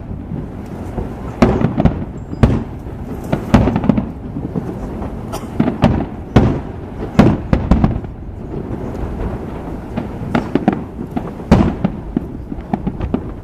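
Aerial fireworks display: shells bursting one after another at an irregular pace, sharp booms every second or so, with crackling and rumbling in between.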